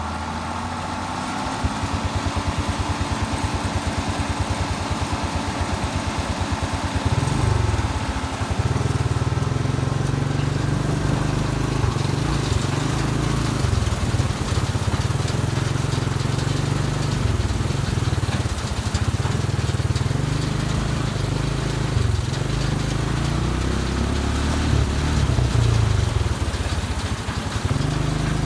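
Engine of a large harvest machine running steadily. It gets louder a second or two in and louder again about seven seconds in, and its pitch wavers slightly up and down under changing load.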